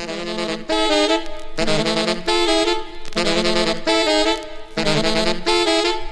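Merengue music from a vinyl record: a saxophone section plays short, repeated riffs in clipped phrases that open the song.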